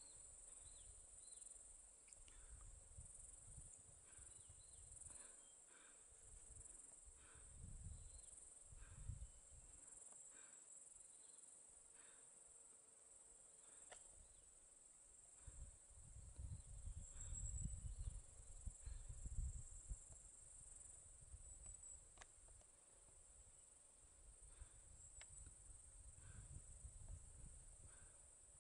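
Near silence: faint outdoor ambience, with a steady high-pitched insect buzz and soft gusts of wind rumbling on the microphone.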